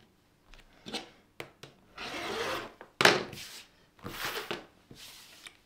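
Hands sliding fabric and a clear acrylic quilting ruler over a cutting mat: a few short rubbing swishes with faint light clicks, the sharpest about three seconds in.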